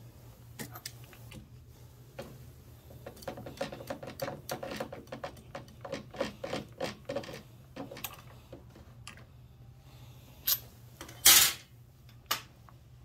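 Plastic body cowls of a Honda PCX 125 scooter being pried and worked loose by hand with a screwdriver: a run of quick rubbing scrapes and creaks, then a few sharp clicks and one loud clack near the end as a panel comes free or knocks against the frame.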